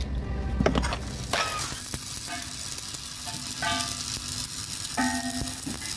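A short knock, then about a second in a stick-welding arc strikes on a steel truck wheel rim and crackles and sizzles steadily.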